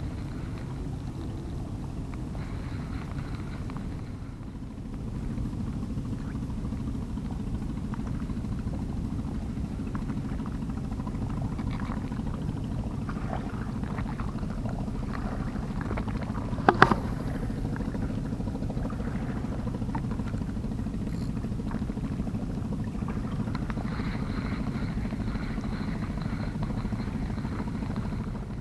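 Steady low rumble of a distant boat engine running, with a single sharp click a little over halfway through.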